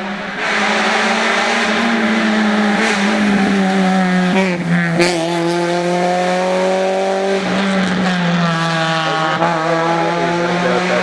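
Honda Civic rally car's engine pulling hard at speed, its pitch climbing through the revs and dropping at gear changes about halfway through and again a few seconds later. There is a sharp crack about five seconds in.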